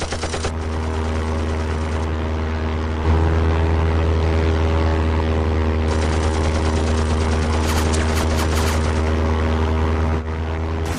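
Propeller-driven WWI biplane engine droning steadily, growing louder about three seconds in as it passes close. About eight seconds in, a short burst of about six rapid machine-gun shots sounds over the drone.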